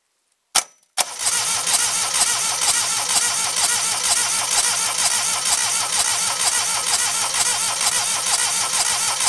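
Suzuki G10 one-litre three-cylinder fuel-injected engine, a click and then the engine catching about a second in. It runs loudly and steadily with its cam and timing belt covers off, and cuts off suddenly at the end. The owner says it won't keep running and suspects an electrical problem.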